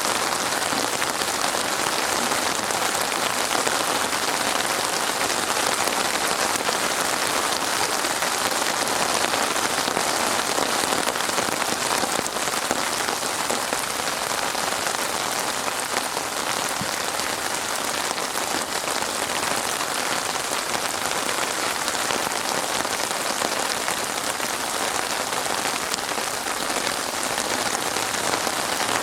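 Steady rain falling on a surface, an even hiss of many drops with no change in intensity.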